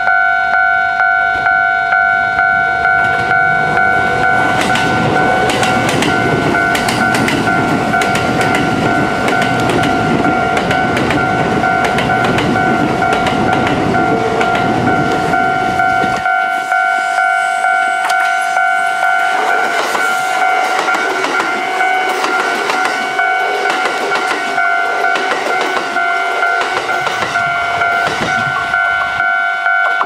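Japanese level-crossing warning bell ringing without a break in a rhythmic, steady electronic tone, while a Kintetsu 22000 series + 12200 series electric limited express rumbles and clatters past over the rails. About halfway the heavy rumble drops away suddenly, and later a Kintetsu 23000 series express is heard coming closer under the bell.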